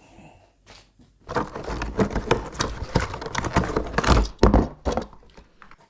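Plastic toy racetrack set being handled: a dense, rapid clattering and clicking of hard plastic parts for about three and a half seconds, loudest near the end.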